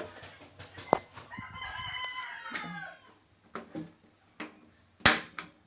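A rooster crowing once: one long call of about a second and a half, starting just over a second in and falling in pitch at the end. A few sharp clicks are also heard, the loudest a sharp clack near the end.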